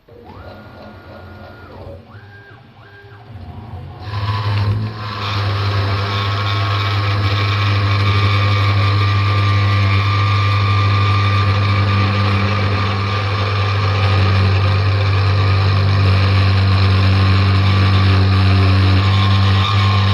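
CNC router working on a guitar body. In the first few seconds its motors give short whining tones that rise in pitch, hold and fall as the machine moves. About four seconds in, a loud steady running sound with a deep hum and a broad hiss takes over.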